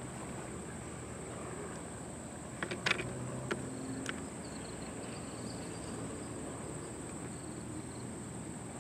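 Outdoor ambience: a steady high-pitched insect drone over a faint low hum, with a few sharp clicks about three to four seconds in.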